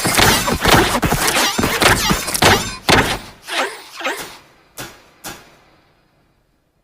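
Pixar intro lamp sound effects, stacked and distorted by audio effects: a dense clatter of hops and thunks that thins into a few separate echoing thuds, each fainter than the last, fading out near the end.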